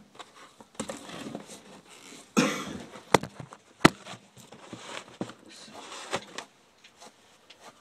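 Handling noises as a partly skinned gray fox is flipped over on a wooden table: fur and hide rustling, a short rough scrape about two and a half seconds in, then two sharp knocks.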